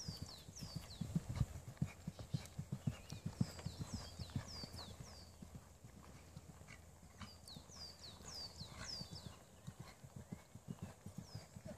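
Horse cantering on a sand arena surface: a run of dull, muffled hoofbeats.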